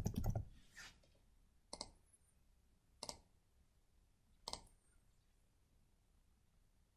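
A short run of computer keystrokes at the start, then four single computer mouse clicks spaced about a second or so apart.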